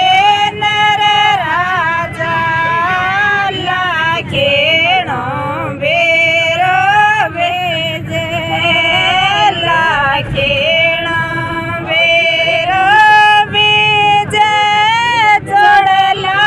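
Women singing a Rajasthani (Shekhawati) beera geet, a folk song of the bhaat wedding rite, in unison in long held, bending lines. A low steady rumble runs underneath.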